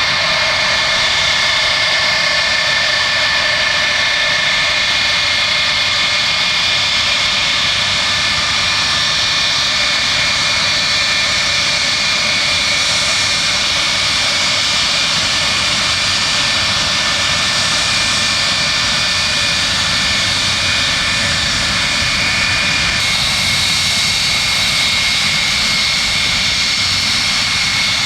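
The Pratt & Whitney JT3D turbofans of a DC-8-55F freighter run steadily, giving a loud jet roar with a high-pitched whine. The whine's tones shift slightly about three-quarters of the way through.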